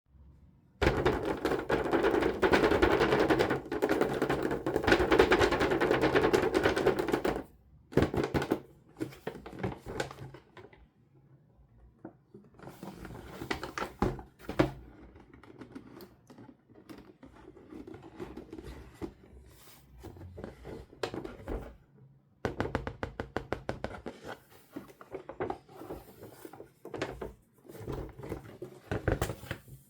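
Plastic toy packaging and parts being handled: several seconds of dense rustling, then an irregular run of clicks and taps.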